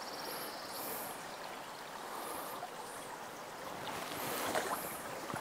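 Small creek's water running steadily, a soft even rush, with a few faint high chirps over it.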